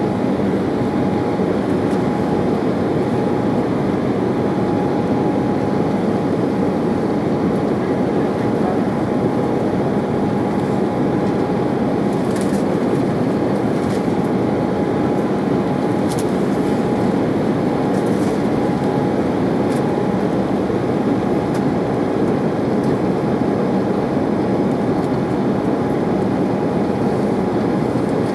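Cabin noise inside an Embraer 190 airliner in flight: a steady rushing drone of airflow and its General Electric CF34 turbofan engines, with a steady faint whine running through it.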